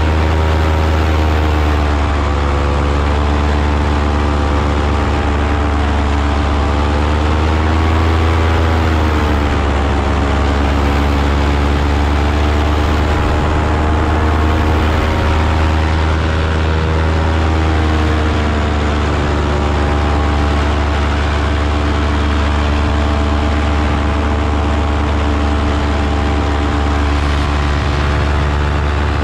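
Paramotor engine and propeller running steadily in flight, heard close up from the pilot's harness, its pitch rising and falling briefly about eight seconds in.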